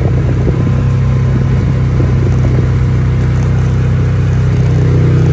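Vehicle engine running with a steady low drone while driving slowly, heard from on board; it grows a little louder near the end.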